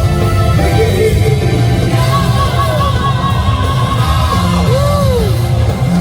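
Live J-rock performance at full volume: a loud rock band with a singer holding a long note and sliding between pitches.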